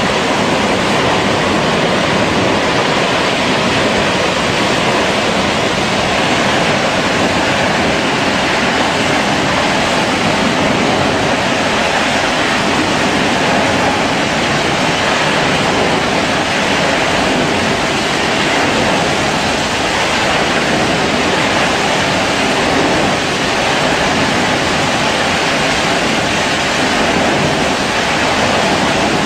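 Loud, steady rushing noise of a drilling rig well blowout: gas and well fluid jetting out of the well and burning up through the derrick.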